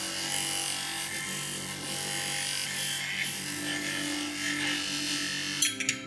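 Small electric power tool grinding or polishing metal on a Zippo lighter part: a steady gritty hiss over a motor hum. A few sharp clicks come near the end as music takes over.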